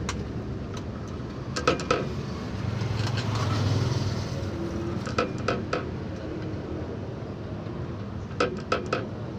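Light metallic clinks of hand tools and brake parts on a truck's drum-brake assembly, in three quick clusters of three or four clinks, over a steady low rumble.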